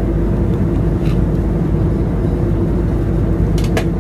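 Steady drone of an airliner cabin in flight, with a few light clicks about a second in and near the end.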